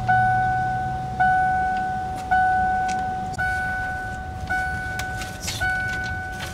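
Vehicle dashboard warning chime dinging about once a second, six dings, each fading before the next: the alert for the driver's door standing open with the key left in the ignition.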